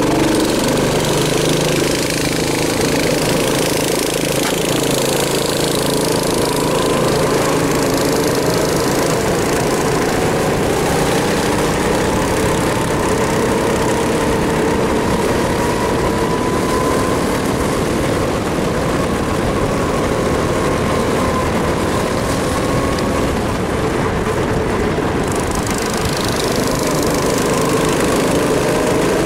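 A 270 cc four-stroke go-kart engine running steadily under way, heard from on board the kart. Its pitch rises and falls gently as the kart speeds up and eases off through the corners.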